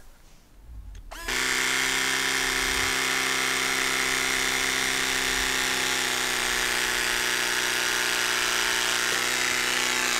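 Battery-powered hydraulic cable cutter motor starts about a second in and runs steadily as it presses its blades through a primary underground power cable.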